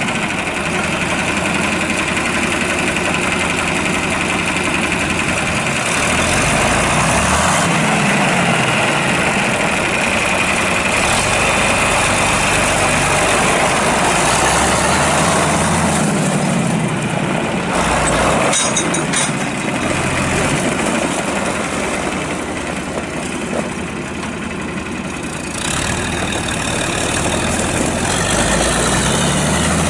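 John Deere 4020 six-cylinder diesel tractor engine running as the tractor is driven, its pitch rising and falling a few times. A short mechanical clatter comes about two-thirds of the way through.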